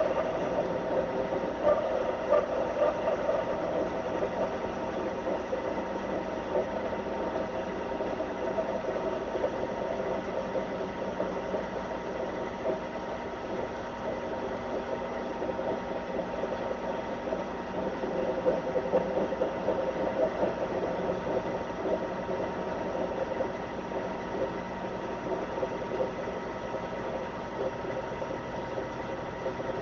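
Small hobby metal lathe running steadily with a steady whine, while a form tool cuts a small part.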